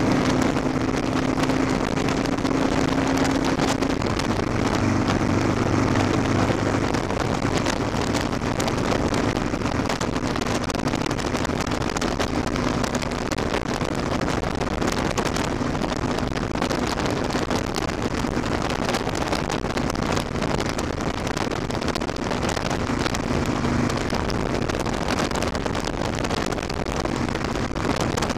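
Motorcycle engine running steadily at highway speed, around 58 mph, under heavy wind noise on the microphone. The engine note is strongest in the first few seconds and sinks into the wind rush later on.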